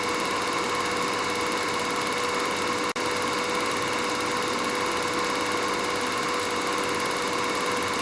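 Steady mechanical whirring with a constant hum and hiss, broken by a split-second gap about three seconds in.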